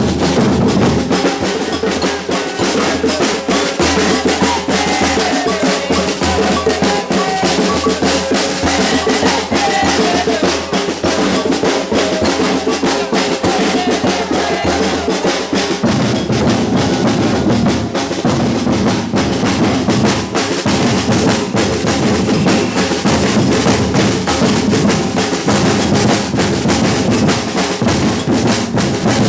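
Batucada drum ensemble playing a steady samba groove: bass drums, snare drums and other percussion together. The bass-drum pattern changes about halfway through.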